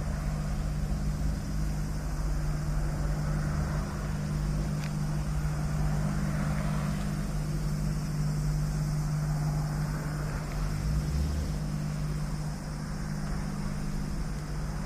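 An engine running steadily, a constant low hum with no rise or fall in pitch.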